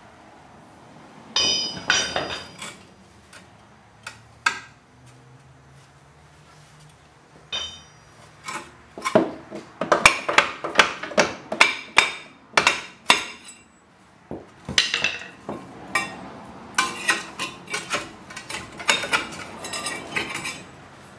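A 3-pound hammer striking the back of a rusted brake rotor stuck to its hub: sharp metallic clanks that ring. A few scattered blows come early, then a fast run of about two a second from around nine seconds in, and more clusters near the end as the seized rotor is knocked loose.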